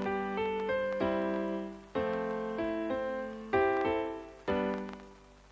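Background music of soft electric piano chords, a new chord struck about every second and each dying away; the music fades out near the end.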